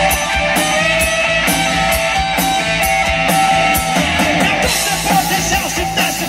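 Live rock band playing: electric guitars and bass over drums, with a steady run of cymbal strikes that drops out about two-thirds of the way through.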